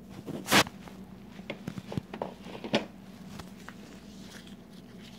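Rummaging through stored items: scattered knocks, clicks and rustles, the loudest knock about half a second in, over a steady low hum.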